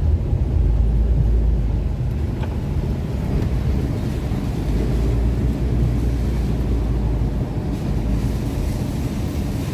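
Steady low rumble of a car driving, heard from inside the cabin, with road and engine noise. It swells a little in the first couple of seconds and again midway.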